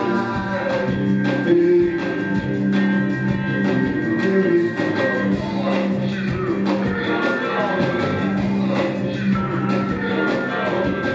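A rock band playing live in an instrumental stretch of the song, with drums keeping a steady beat under a bass line and long held tones.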